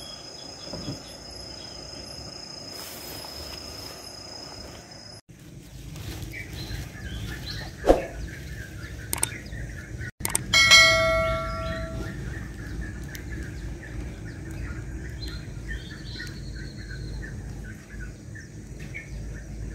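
Night insects trilling on one steady high note, then after a cut small birds chirping outdoors, with a sharp knock near eight seconds. About ten and a half seconds in, a bright bell-like chime rings out and fades: a subscribe-button notification sound effect.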